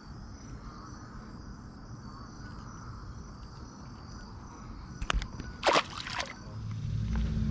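Insects chirping steadily in the background. About five and a half seconds in comes a short splash and patter as the tiny bass is dropped back into the pond. Near the end a steady low hum comes in.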